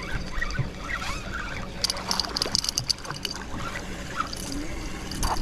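Water splashing and trickling beside a small fishing boat while a hooked fish is brought in, with a cluster of sharp clicks and splashes about two seconds in.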